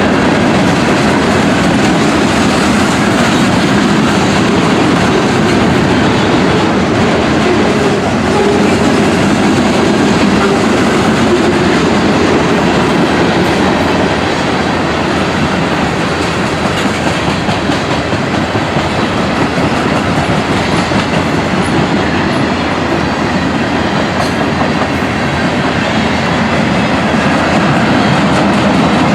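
Freight train cars rolling past, with a steady loud noise of steel wheels on the rails. It eases a little partway through and comes back up near the end.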